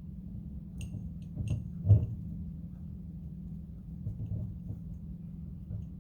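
Hands working twine on a mason jar: soft rustles and small clicks, with one louder thump about two seconds in, over a steady low hum.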